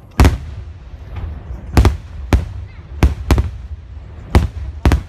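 Aerial firework shells bursting in a quick series of sharp bangs, about seven in five seconds, over a steady low rumble.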